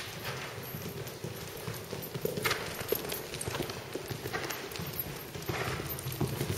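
Hoofbeats of a shod horse moving on the dirt footing of an indoor arena: a continuous, rhythmic run of soft thuds and clicks.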